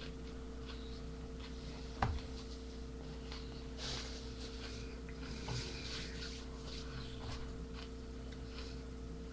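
Steady electrical hum from a webcam microphone, with a sharp knock about two seconds in and faint scattered clicking and rustling from small movements close to the mic.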